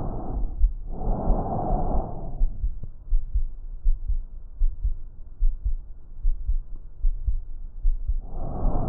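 Breath sounds heard through a stethoscope on the chest: two swells of airy rushing, each over a second long, then a quieter stretch of several seconds before the next breath begins near the end. Low heartbeat thuds run underneath.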